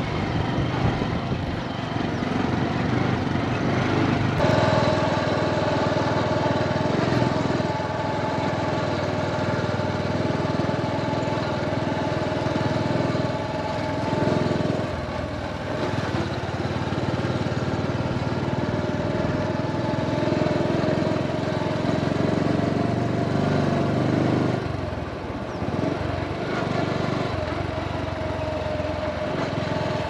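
Motorcycle engine running while riding on a dirt track, a steady drone with a held whine, easing off briefly about halfway through and again later.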